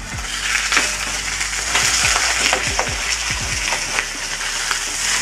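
Pejerrey fillets sizzling in olive oil in a non-Teflon frying pan, with a spatula scraping repeatedly under the fish against the pan bottom to loosen it where it may stick.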